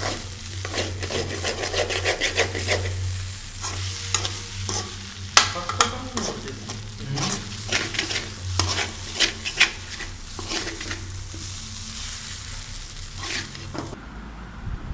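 A spoon stirring and scraping Maggi noodles in a hot pan, with irregular sharp scrapes and knocks over sizzling frying. A steady low hum runs underneath until the sound changes abruptly near the end.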